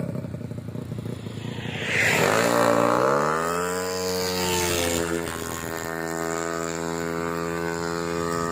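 Bored-up 200 cc Yamaha Mio scooter's single-cylinder four-stroke engine running rough at first. About two seconds in it is revved sharply, then its pitch falls and settles into a steady, even drone.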